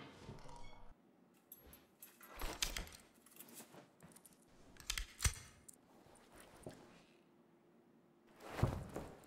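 Sparse Foley effects: a few separate dull thuds, the loudest about two and a half, five and eight and a half seconds in, with light rattles and rustles between stretches of quiet room tone.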